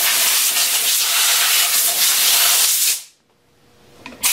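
Compressed-air blow gun blasting, a loud steady hiss for about three seconds that cuts off, then a second blast starting near the end. It is blowing steel-wool debris out of a wood lathe's tailstock.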